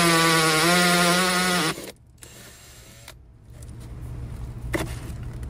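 Cordless drill spinning a 1.25-inch hole saw through the plastic wall of a dry well: a steady motor whine under load that stops abruptly about two seconds in. A light knock follows near the end.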